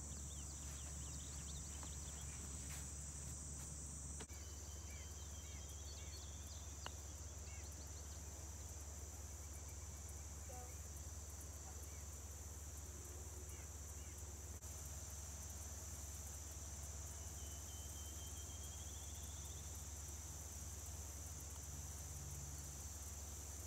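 Insects chirring in a steady high-pitched drone, with a few faint short chirps over it.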